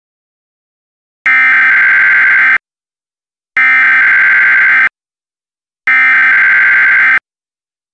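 Emergency Alert System SAME header: three identical bursts of harsh, buzzy digital data tone, each a little over a second long and about a second apart. This is the coded header that opens a new emergency alert.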